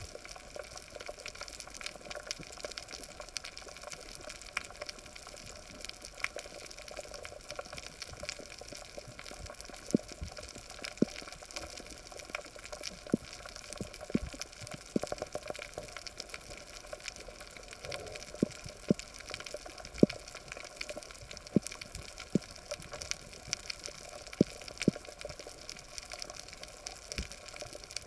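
Underwater coral reef ambience: a steady crackling hiss, with a dozen or so sharp low knocks scattered through the second half, louder than the crackle.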